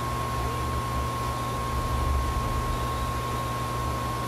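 Steady hum and hiss of bench equipment, with a constant high-pitched whine over a low hum.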